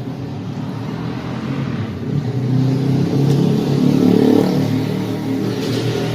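Yamaha MT-09's inline three-cylinder engine running, getting louder from about two seconds in, loudest around four seconds, then easing back.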